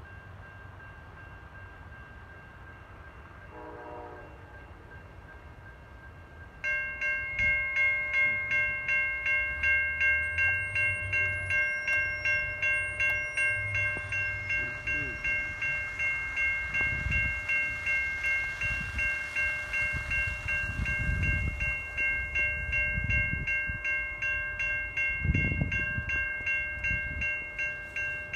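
Railroad grade crossing bell starts ringing suddenly about seven seconds in and keeps ringing evenly at about one and a half strokes a second, the crossing warning for an approaching train. Before it, a short faint chord like a distant train horn sounds about four seconds in.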